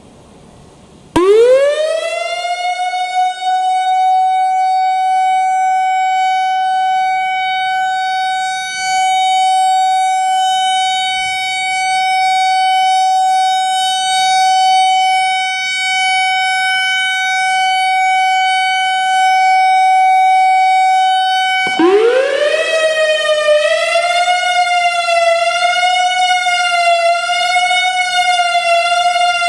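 Whelen WPS-3000 electronic outdoor warning siren starting up: its tone sweeps up quickly and holds steady for about twenty seconds. Then it cuts out, sweeps up again and switches to a wail that wavers up and down in pitch a little more than once a second.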